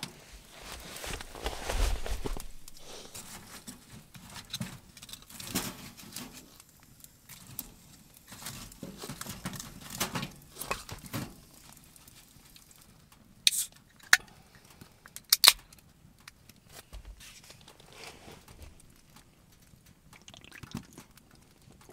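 Split firewood being loaded into a small metal wood stove: irregular wooden knocks and scrapes against the firebox. About two-thirds of the way through come a few sharp metallic clicks as the stove door is shut.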